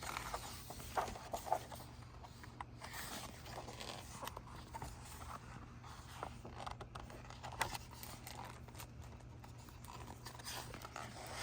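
Faint scattered rustles and light taps, a couple of sharper ones about a second in and near the end, over a steady low hum.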